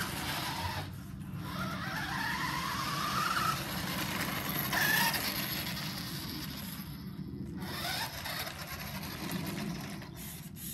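Nikko Firehawk radio-controlled buggy driving on brick pavers: its electric motor and gears whine, rising in pitch each time it speeds up, over a steady rattle of the wheels on the pavers, with a couple of brief breaks where the motor lets off.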